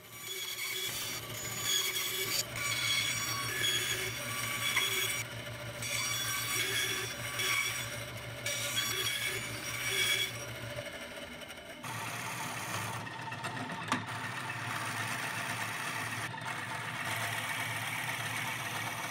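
Scroll saw running and cutting through plywood for roughly the first eleven seconds. After a short pause, a drill press runs and bores into a small wooden block until the end.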